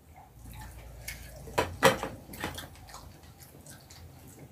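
People eating rice with their fingers: a few short wet smacking and clicking sounds, the loudest pair a little under two seconds in.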